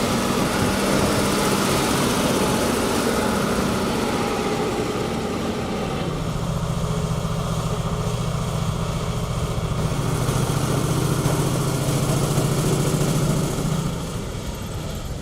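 Heavy diesel crawler bulldozer engine running steadily. Its tone changes about six seconds in, and it grows quieter near the end.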